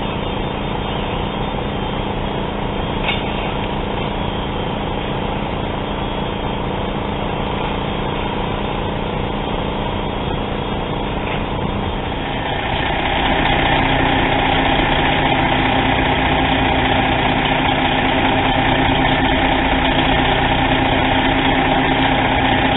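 Fire truck engine running steadily. About thirteen seconds in it becomes louder, with a stronger steady hum.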